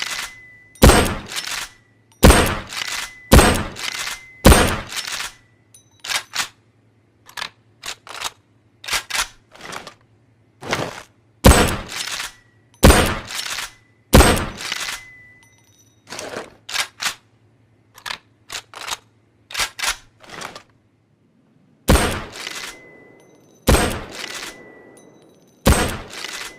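Nagant rifle sound effect: about a dozen sharp gunshots in three groups, several followed by a brief high ring. Between the groups come clusters of quieter metallic clicks, like the bolt being worked.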